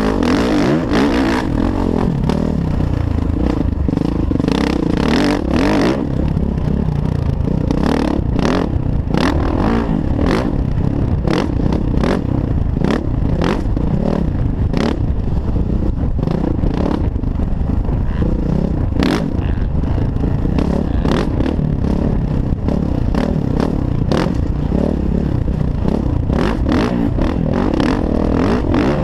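Kawasaki KX450F dirt bike's single-cylinder four-stroke engine running under riding load, its revs rising and falling, with many short knocks and clatter from the bike over the rough trail.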